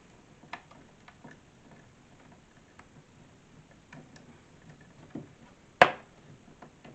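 Small clicks and ticks of screws being driven by hand into a metal hinge on a wooden storage box, scattered and faint, with one sharp, loud click about six seconds in.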